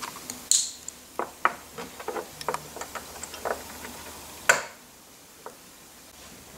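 Light, irregular clicks and taps of small bearings and metal parts being handled and pushed into the actuator's end plates, with the sharpest click about four and a half seconds in.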